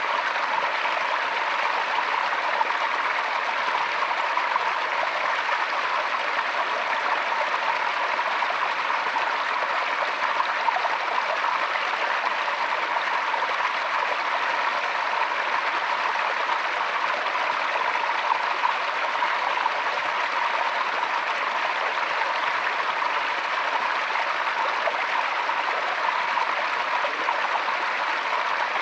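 Forest stream flowing over rocks: a steady, even rush of water.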